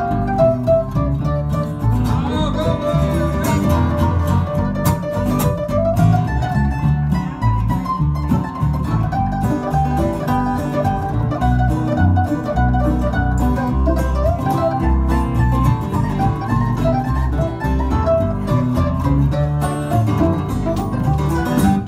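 Acoustic guitar and mandolin playing together live, the guitar strumming while the mandolin picks a melody: an instrumental break in a country song, with no singing.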